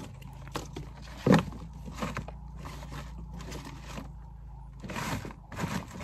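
Leafy plant stems rustling and scraping on the cardboard floor of a cardboard box trap as they are laid out by hand, in a string of short rustles with one louder thump about a second in.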